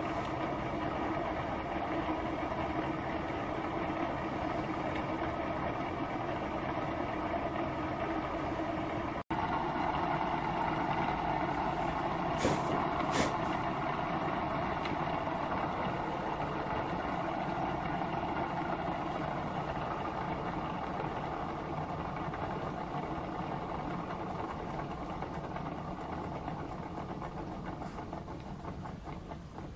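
Small home-built gamma Stirling engine running steadily, a continuous mechanical whirr from its flywheel, connecting rods and pistons. Two sharp clicks come about twelve seconds in, and the sound grows gradually quieter over the last several seconds.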